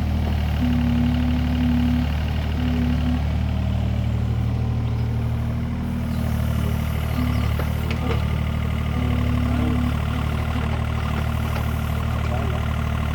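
Mini excavator's diesel engine running steadily, with a higher tone that comes and goes several times.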